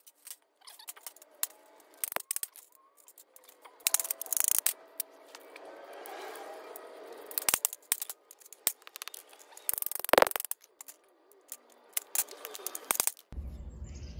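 A hatchet and machete chopping small e-waste transformers apart on a metal baking sheet: irregular sharp knocks and clicks, pieces clattering on the tray, and a stretch of scraping in the middle. Near the end it changes to a steady low hum.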